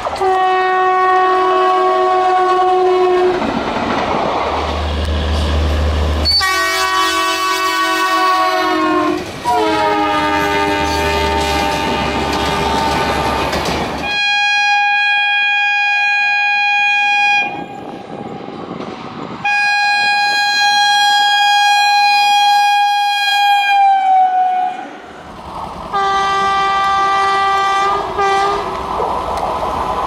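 Indian Railways locomotive horns sounding about six long blasts one after another, each two to four seconds long, with a few sagging in pitch as they end. The noise of the moving trains fills the short gaps between blasts.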